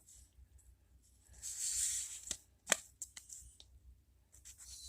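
Paper and marker being handled: a soft rustle of paper about a second in, then one sharp click and a few lighter taps, and another faint rustle near the end.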